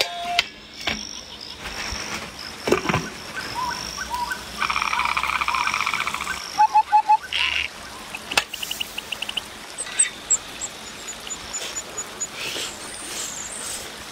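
Frogs croaking with birds and insects calling: a long pulsing trill about five seconds in, four quick low croaks right after it, and scattered chirps and high pips. A few sharp knocks, as of a metal pot or steamer being handled, stand out among the calls.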